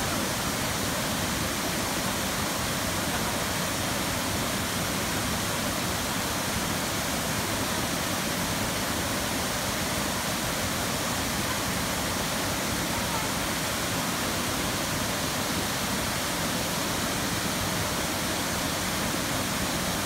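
Waterfall cascading over rocks into a pool: a steady, unbroken rush of falling water.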